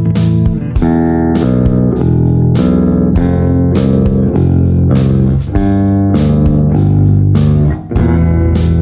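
Eight-string electric guitar played with a clean tone, picking notes and chords that ring on, with a new one struck every half second to a second and deep low-string notes under them.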